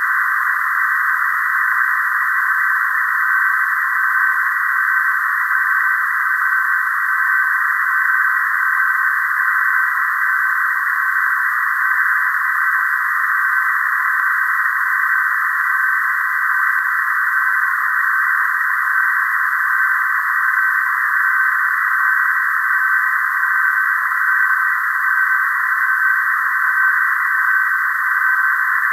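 PSK31 digital-mode audio from a Flex 6500 and an Anan 8000DLE software-defined radio receiver: steady receiver hiss squeezed into a narrow band, with a thin, steady data tone running through it.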